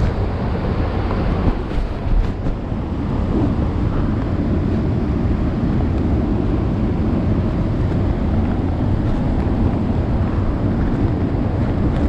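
Steady rushing roar of a waterfall, heaviest in the low end, with a few handling knocks about two seconds in.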